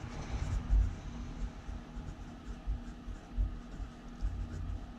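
Marker pen writing on paper: faint scratchy strokes with irregular dull low knocks.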